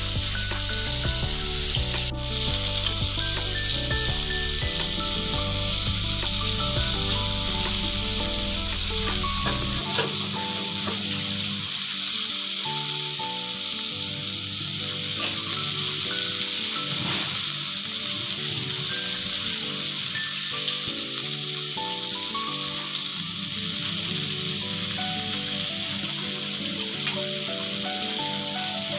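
Chicken pieces coated in cornflour deep-frying in hot coconut oil in a kadai: a steady, even sizzle of bubbling oil.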